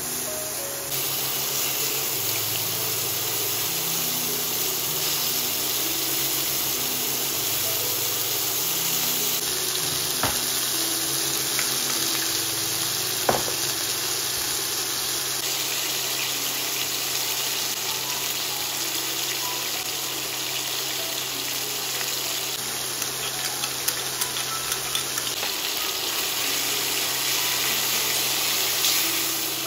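Pork liver slices and onions frying in hot oil in a pan, a steady sizzling hiss. A few sharp clicks and taps come through, one around ten seconds in, one around thirteen, and a quick run of small ones later on.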